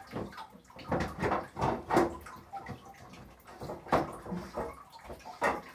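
Water sloshing and splashing in irregular bursts, with knocks of plastic fodder trays being handled on a rack.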